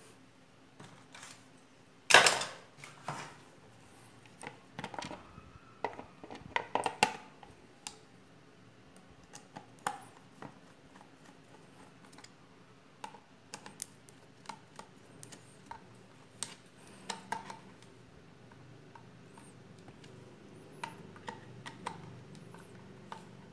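Hand-assembly sounds: one sharp knock about two seconds in, then scattered clinks and taps of a screwdriver and small metal parts such as washers and a nut as screws are driven into a guard plate on a grass-cutter motor mount.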